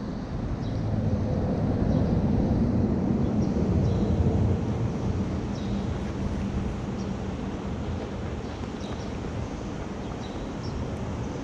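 Wind rumbling on the microphone, a little stronger in the first few seconds, with a few faint light ticks.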